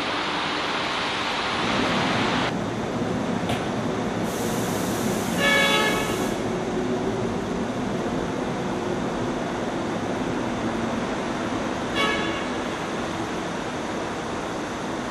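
Seoul Metro Line 2 subway train running: a steady hiss that cuts off abruptly about two and a half seconds in, then a lower running rumble. Over the rumble a train horn sounds for about a second, and a shorter toot comes about twelve seconds in.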